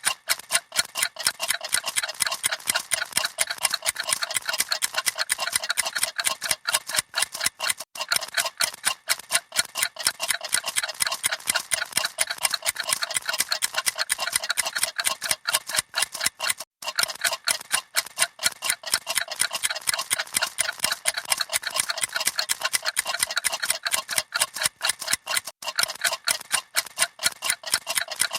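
Many clocks ticking at once, fast and out of step with one another, making a dense, continuous clatter of sharp ticks.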